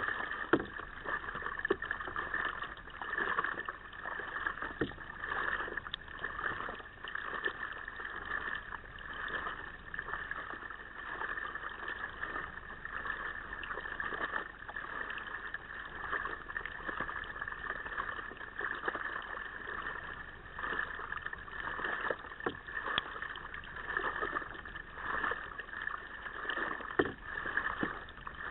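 Water splashing and lapping against a kayak's hull as it is paddled, swelling and fading with the strokes, with a few light knocks.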